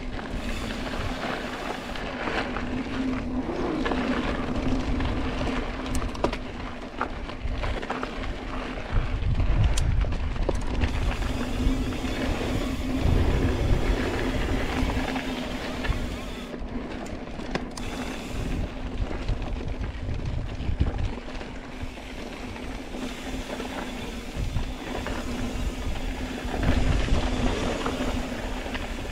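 Mountain bike riding fast over a dirt trail: knobby tyres rolling and rattling on the ground with a steady low hum, and wind rumbling over the camera microphone, swelling in gusts several times.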